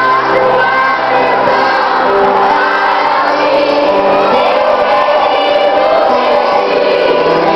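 A song with voices singing over instrumental backing, playing loudly and steadily.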